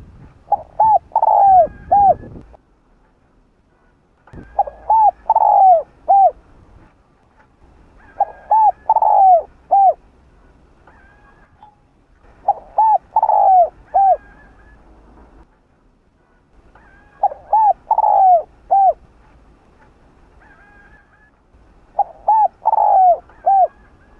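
Spotted dove cooing: six repeated song phrases about four seconds apart, each a few short coos with one longer drawn-out note near the middle.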